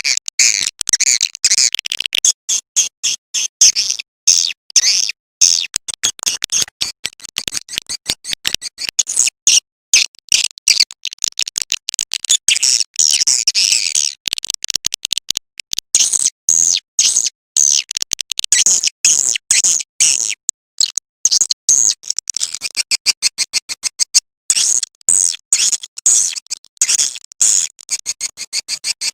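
Edible-nest swiftlet call recording: dense, rapid high-pitched chirping and twittering in quick chopped runs with brief gaps. It is a lure call, played to draw swiftlets into a nesting house.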